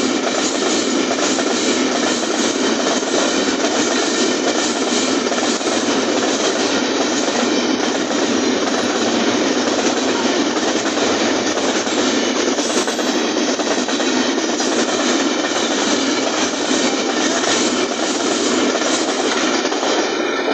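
A long freight train of container flatcars and covered wagons rolling past, a steady loud noise of wheels on the rails that begins to fade at the very end as the brake van goes by.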